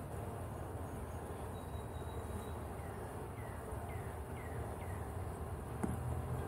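Honeybees humming around an open hive. Partway through come five short falling chirps, about two a second, and a single sharp click near the end.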